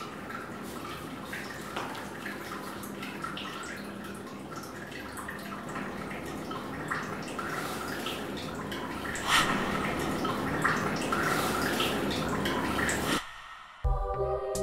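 Running water splashing and dripping: a steady rushing hiss with scattered drips that grows louder about nine seconds in, then stops abruptly near the end.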